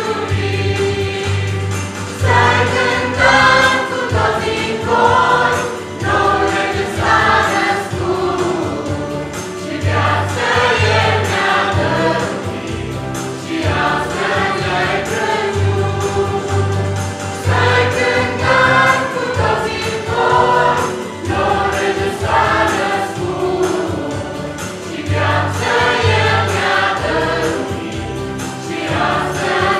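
Choir singing in phrases over a steady low instrumental accompaniment.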